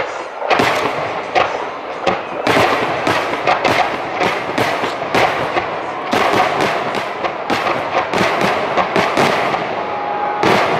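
Aerial firework shells bursting in a rapid barrage: loud bangs several times a second, overlapping into a continuous volley.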